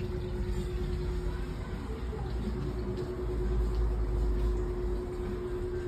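Low rumble of street traffic, swelling about three and a half seconds in as a vehicle passes, under a steady hum.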